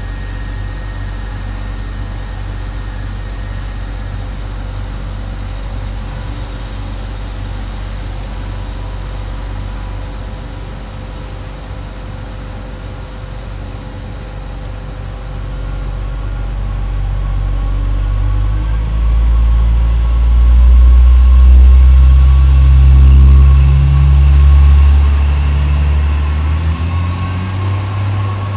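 TER diesel multiple-unit train idling with a steady low engine hum, then its engines rise in level and pitch a little past halfway as it pulls away from the station. The engine sound is loudest a few seconds later and eases off near the end.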